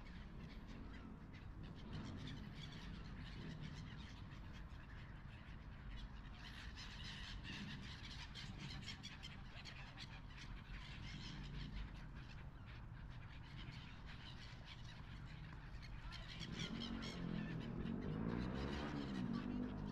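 Gulls and other waterbirds calling repeatedly over open canal water, with a person's voice coming in near the end.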